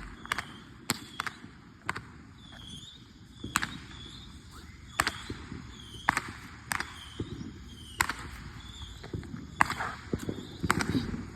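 Fireworks going off: a string of sharp bangs and pops at irregular intervals, roughly one every second or so.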